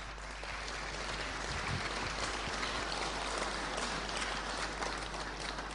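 Audience applauding: many people clapping together, easing off near the end.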